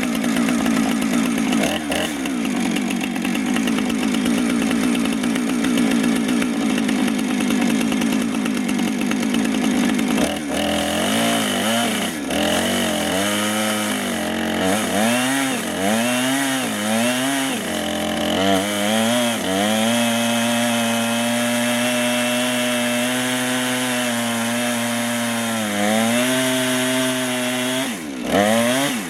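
Two-stroke chainsaw on a chainsaw mill running at high revs. From about ten seconds in, its pitch repeatedly dips and climbs back, then holds steadier a little lower, with two short dips near the end.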